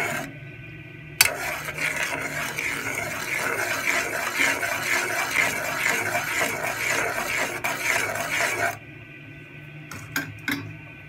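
Metal spoon stirring and scraping around the bottom of an aluminium saucepan of jaggery syrup as it cooks down. There is a rapid steady rasping, with one sharp clink about a second in. The stirring stops about nine seconds in, followed by a few light taps.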